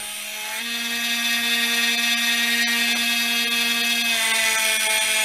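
Small 1x30 belt grinder running while its belt grinds the bevel of a 440C stainless steel knife blade held in a jig: a steady motor whine under a high grinding hiss. The sound grows louder about half a second in as the blade bears on the belt, and the hiss strengthens near the end.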